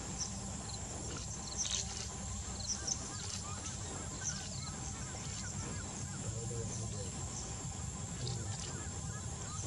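Forest ambience: a steady high-pitched insect drone with scattered short, faint bird chirps over a low background rumble.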